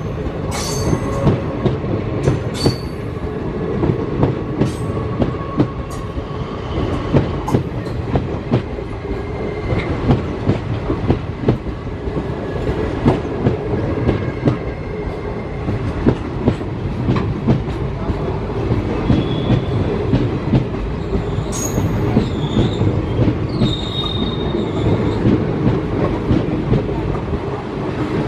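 Yellow ICF passenger coaches of an express train rolling past at speed. There is a steady rumble of wheels on rail, with rapid clicks and knocks as the wheels cross rail joints. Short high-pitched wheel squeals come about two-thirds of the way through.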